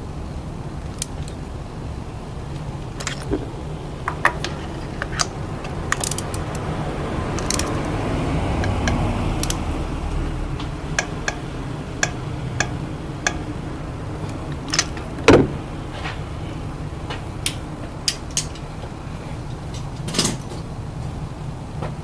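Car engine, a 2AZ-FE four-cylinder, running steadily, with scattered sharp clicks and clinks of metal and a louder knock about 15 seconds in. The engine swells a little for a few seconds near the middle.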